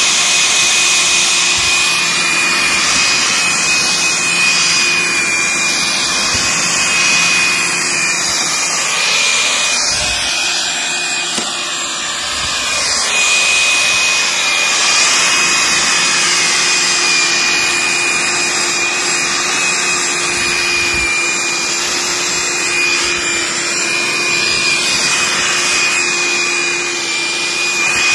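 Hecht 745 electric tiller running under load: its electric motor and worm-gear drive give a steady high whine while the tines churn through the soil.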